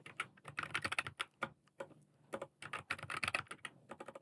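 Typing on a computer keyboard: quick runs of keystrokes in several bursts with brief pauses between them.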